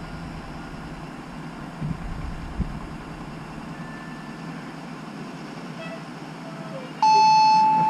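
Outdoor background of road traffic with a few soft knocks. About seven seconds in, a Whelen WPS-4004 electronic warning siren switches on abruptly with a loud, steady, level-pitched alert tone: the siren, dead since it failed in 2020, is working again.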